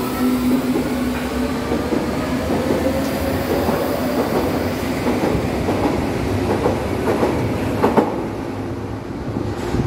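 Berlin U-Bahn train pulling away from the platform, its electric traction motors whining in several tones that rise in pitch as it accelerates, with the wheels clattering over the rails. Near the end the train runs off into the tunnel.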